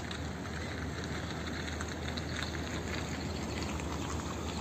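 City street ambience: a steady low traffic rumble under an even hiss, with faint scattered ticks.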